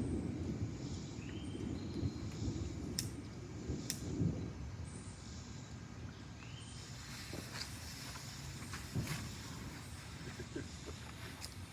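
Faint outdoor background rumble with a few sharp clicks, two of them a second apart about three seconds in.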